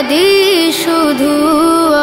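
Singing of a Bengali Islamic gojol: a voice holds long, ornamented notes that glide up and down, with no clear words.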